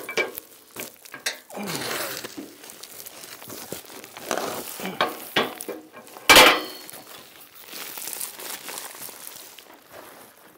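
A bundle of asphalt shingles being handled, its paper wrapper rustling and crinkling. A single heavy thump about six seconds in as the bundle comes down on a plywood work table.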